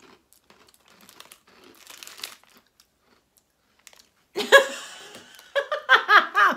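Plastic snack wrapper crinkling faintly as a packet of wheat sticks is opened, then loud laughter about four seconds in.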